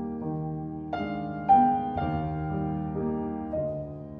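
Background piano music: a slow melody of sustained notes, a new note struck about every half second to second.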